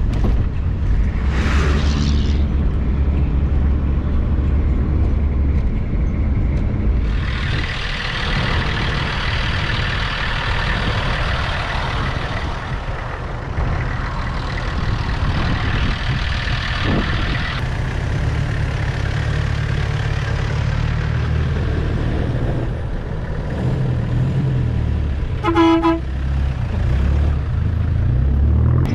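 Off-road vehicle driving with its engine running steadily, a hiss rising over it for about ten seconds. About 26 seconds in, a vehicle horn gives one short toot.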